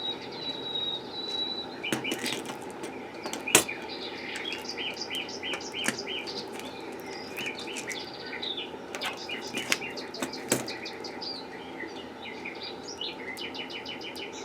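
Small birds chirping and chattering in quick repeated trills, with a few sharp clicks; the loudest click comes about three and a half seconds in.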